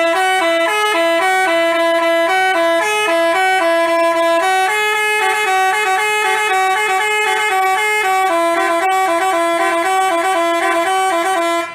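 Basuri telolet bus horn, a multi-tone horn, playing a quick tune of short stepped notes. It starts and cuts off suddenly, stopping near the end.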